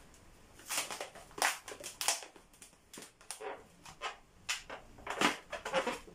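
Long 260 latex modelling balloon rubbing and squeaking under the hands as it is squeezed and twisted, in a string of short, irregularly spaced sounds.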